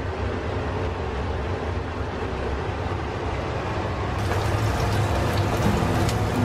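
Kitchen range hood's twin extractor fans running loud, a steady rumble with an airy hiss. Guitar music comes in near the end.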